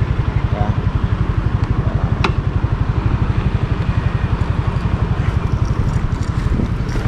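Motorcycle engine idling close by: a steady, fast, low pulsing, with a single sharp click about two seconds in.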